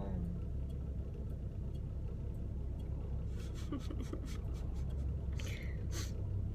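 Steady low rumble of a car heard inside its cabin, with a few short clicks and rustles about three and a half and about five and a half seconds in.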